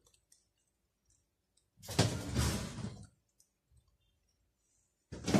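Household handling noise: a rough clatter lasting about a second, a couple of seconds in, and another starting near the end, with silence between.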